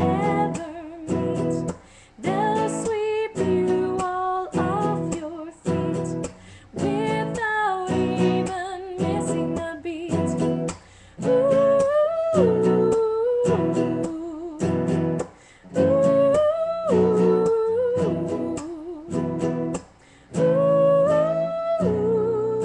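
A woman singing a song with acoustic guitar accompaniment, the melody in phrases a few seconds long over steadily strummed chords.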